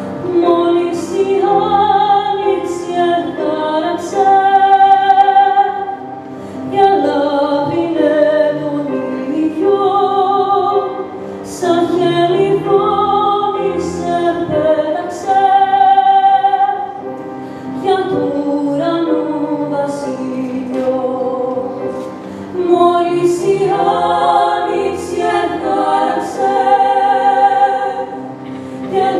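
Women's voices singing a slow Greek song with long held notes, accompanied on grand piano; toward the end two voices sing together.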